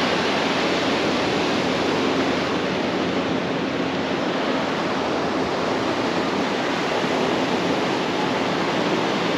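Ocean surf washing onto a beach: a steady, unbroken rush of breaking waves.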